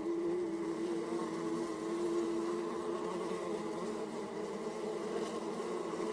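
Honey bees buzzing: a steady hum with a clear drone pitch, many bees at once.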